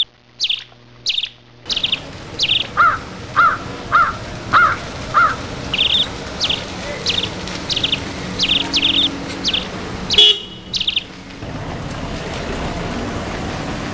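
Birds chirping repeatedly in short high calls, with a run of five lower, bending call notes about three to five seconds in. A brief loud burst about ten seconds in.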